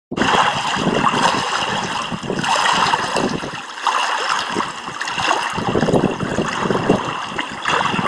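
Lake water lapping and trickling at the shoreline in a steady stream of small splashes, easing briefly about halfway through.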